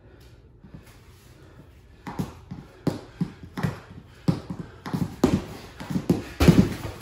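Wrestling shoes stepping and stamping on a foam wrestling mat, with slaps and thuds against a leather grappling dummy during a throw drill. After a quiet start, a quick run of irregular thuds begins about two seconds in and grows louder toward the end.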